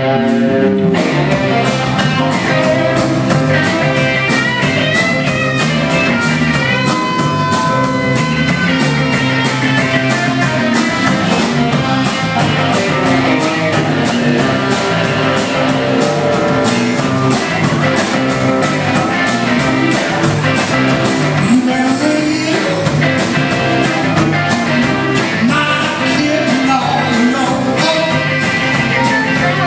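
Live rock and roll band playing: two electric guitars, bass guitar and drum kit, with a steady drumbeat throughout.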